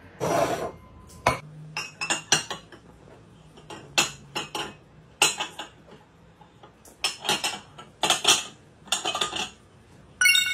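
Porcelain cups clinking and knocking against one another and against a saucer as they are stacked one by one, in irregular clusters of short clinks.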